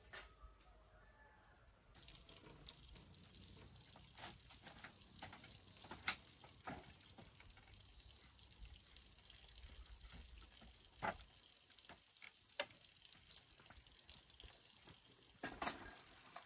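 Faint rural ambience: a high-pitched insect call that rises and then holds, repeating every two or three seconds, with a few sharp clicks or knocks.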